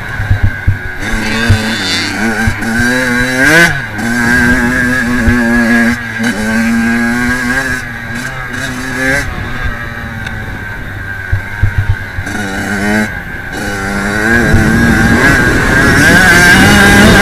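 Kawasaki KX 85 two-stroke motocross engine revving hard and dropping off again and again as the throttle is worked on and off, with short knocks from the bike over rough ground. A rushing hiss builds over the last few seconds.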